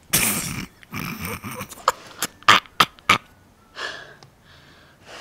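Loud eating noises close to the microphone as a forkful of chili cheese fries goes into the mouth. A long noisy rush at the start is followed by five sharp smacks, about three a second, between two and three seconds in.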